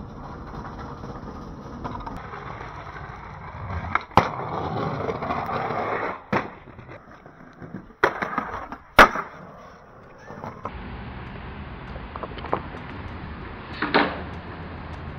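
Skateboard wheels rolling, broken by about five sharp pops and landing smacks of tricks; the loudest hits come about four seconds in and at nine seconds.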